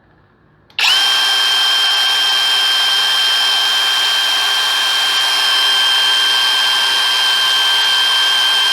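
Kobalt 24V right angle impact wrench running free in reverse at full speed with no load, so it does not hammer, at about 1,980 rpm. It starts about a second in with a steady, even motor whine.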